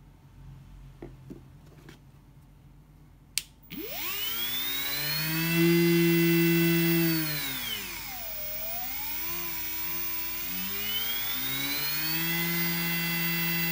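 Homemade die grinder's brushless motor switched on with a click a few seconds in, whining up to speed. The pitch dips and swoops about the middle, then climbs back and holds steady.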